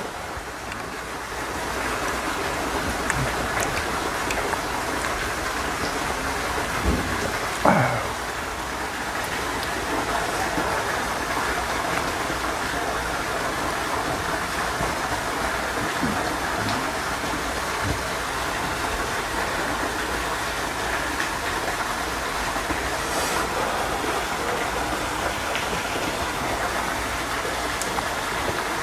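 Steady rain falling, an even hiss with no let-up, with one brief louder sound about eight seconds in.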